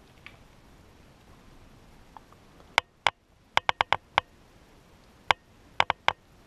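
A series of light, sharp clicks over faint room tone, some alone and some in quick runs of three or four, starting a little under halfway through.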